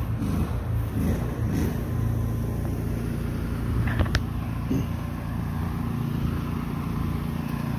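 A pressure-washing rig's engine running steadily with a low, even hum, and a short click about four seconds in.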